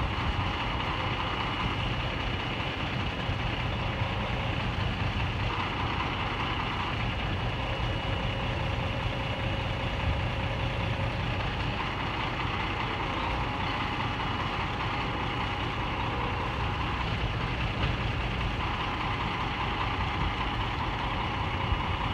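Fire ladder truck's diesel engine idling steadily with its aerial ladder raised, a constant low hum with a higher-pitched noise that swells and fades several times.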